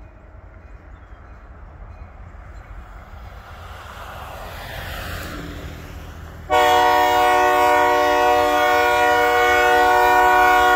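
A diesel locomotive's air horn sounds one long, loud blast for a grade crossing, starting suddenly about two-thirds of the way in and holding steady, its several notes sounding together. Before it, a vehicle passes on the road with a falling pitch over a low rumble from the approaching train.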